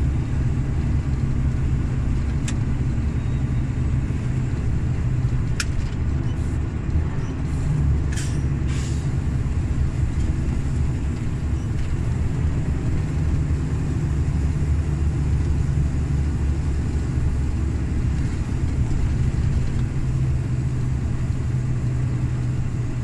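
Volvo FH460 truck's 13-litre straight-six diesel running steadily at cruise, heard from inside the cab as a low, even drone mixed with road noise, with a few faint clicks.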